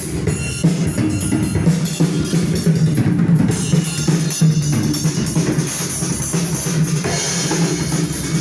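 Music with a drum kit playing: kick and snare strokes over a loud, continuous mix.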